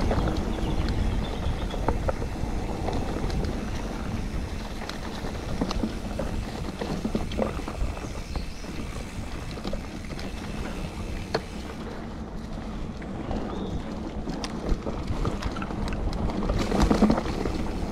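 Calibre Triple B mountain bike ridden along a dirt woodland trail: tyres rolling over the ground, wind rushing over the microphone, and the bike knocking and rattling over bumps, with a few sharp knocks and a louder spell of rattling near the end.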